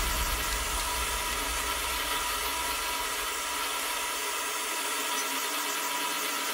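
Gas blowtorch flame burning with a steady hiss.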